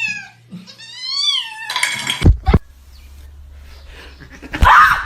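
Domestic cat meowing: two drawn-out meows that fall in pitch at the end, the second about a second in. They are followed by a short rustle, two sharp knocks, and a loud noisy burst near the end.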